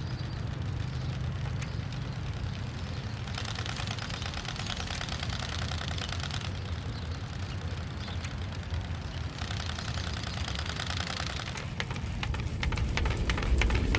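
Playing card clipped to a bicycle's front fork with a clothespin, flapping against the turning spokes: a rapid clatter of clicks that comes in stretches over a low rumble and grows louder near the end.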